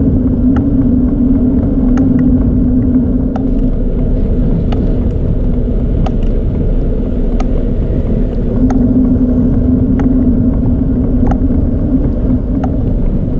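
A bicycle rolling along a paved path, heard from the bike: a loud, steady low rumble of tyres and wind noise, with a short, sharp tick repeating about every second and a half.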